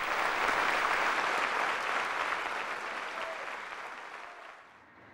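Theatre audience applauding, fading away toward the end.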